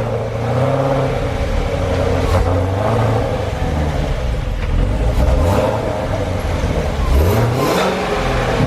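2015 Corvette Z06's supercharged 6.2-litre LT4 V8 running just after its first start, revved several times with the engine note rising and falling.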